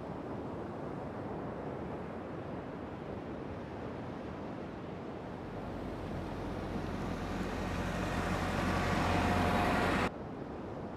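Steady outdoor hiss of wind and surf, then from about halfway a car approaching and passing close, growing steadily louder until it cuts off abruptly near the end.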